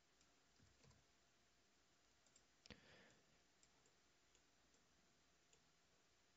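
Near silence with a few faint computer mouse clicks, one a little louder about two and a half seconds in.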